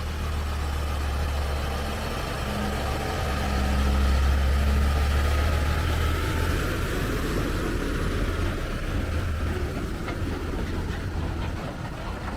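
Heavy diesel truck engine labouring uphill under load: a deep steady drone that swells to its loudest about four seconds in, then eases off.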